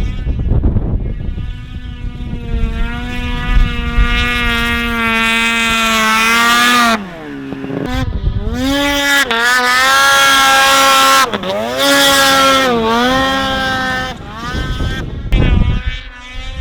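Snowmobile engine at high revs, holding a steady pitch, then dropping off sharply about seven seconds in and climbing and falling again several times as the throttle is worked. Wind buffets the microphone near the start and the end.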